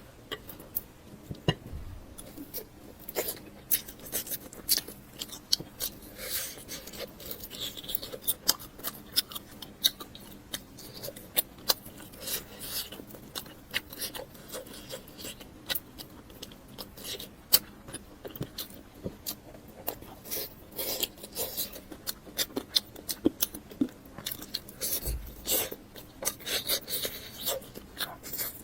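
Close-miked eating sounds: chewing and crunching, with a dense, irregular stream of sharp clicks and crackles.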